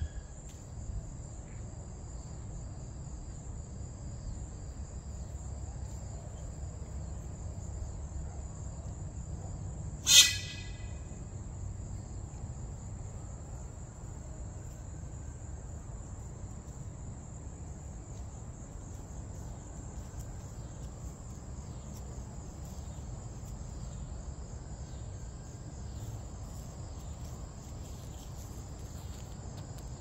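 Crickets trilling steadily in a high pitch over a low, steady background rumble. About ten seconds in comes one short, sharp, loud sound with a brief ringing tone.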